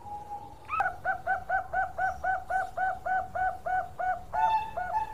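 Bangkok-type zebra dove (perkutut) cooing a fast, even run of short hooked notes, about four a second, for roughly three and a half seconds.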